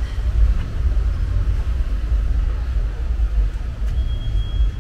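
Night street ambience dominated by a steady low rumble, with a faint short high tone near the end.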